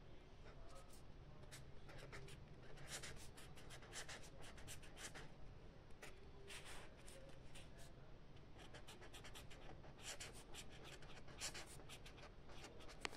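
Handwriting on paper: faint, irregular short scratching strokes of a writing tool moving across the page, with brief pauses between groups of strokes.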